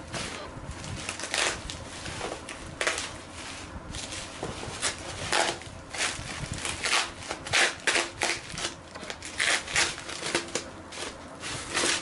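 Bubble wrap crinkling and crackling in irregular bursts as it is pulled and peeled off a box by hand.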